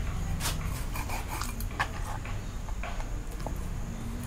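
Steel cleaver scraping and tapping along a catfish's skin on a stone slab while cleaning the fish, a few short, irregular scrapes and knocks.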